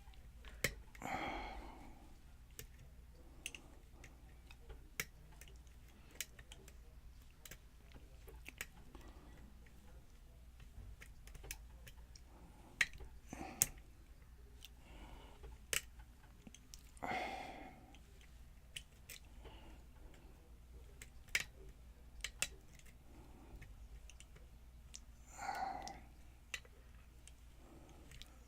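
Lock picks working the pins of a pin-tumbler challenge lock with a Yale-style keyway: small, sharp, irregular metallic clicks as the pins are set and slip. There are three softer, longer rustling sounds among them.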